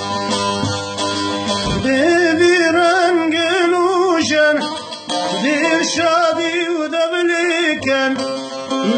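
Man singing a Kurdish folk melody over a plucked saz. The saz plays alone for about the first two seconds, then the voice enters with long, wavering, ornamented notes, breaking off briefly about five seconds in before singing on.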